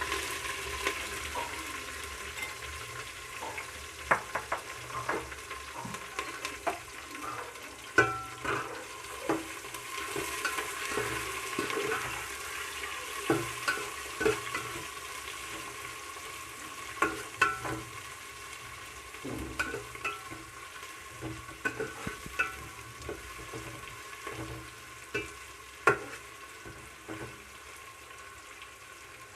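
Sliced onions frying in hot oil with whole spices and green chillies, a steady sizzle, while a spatula stirs them and scrapes and taps against the pan again and again.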